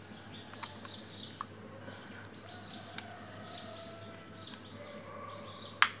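Small birds chirping again and again, over light plastic clicks from a Logitech C310 webcam being handled. A sharp click just before the end as its small plastic cover is pried off.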